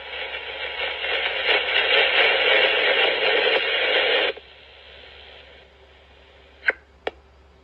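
Radio static: a loud even hiss through a radio receiver that cuts off abruptly about four seconds in. Faint hiss follows, with two short clicks near the end.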